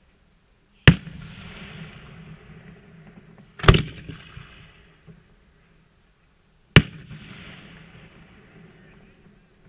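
Aerial firework shells bursting: three sharp bangs about three seconds apart, each trailing off in a fading echo.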